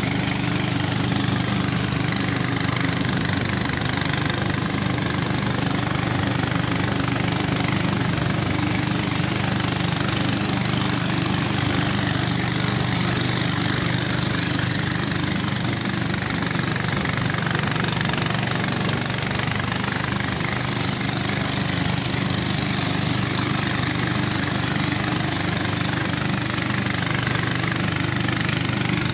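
Motorboat engine running steadily as the boat travels upriver, with water rushing and splashing past the hull.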